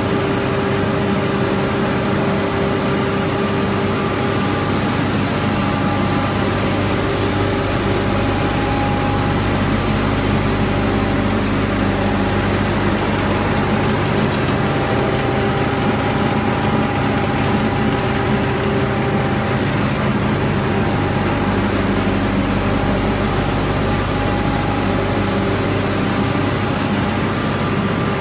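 Paper slitting and rewinding machine running at speed, about 290 metres a minute, slitting a wide roll of drinking-straw paper into narrow rolls. A loud, steady mechanical drone with several steady humming tones.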